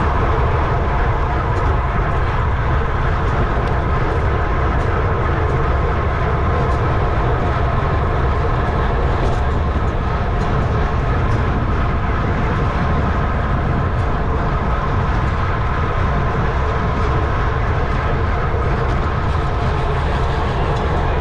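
Wind rushing over a bike-mounted camera's microphone at racing speed, with rolling road noise from the bicycle and a steady hum of several tones laid over it.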